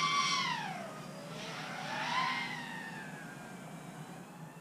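FPV quadcopter's brushless motors whining. The pitch drops sharply as the throttle is cut about half a second in, rises briefly with a short burst of throttle about two seconds in, then sinks lower and fades.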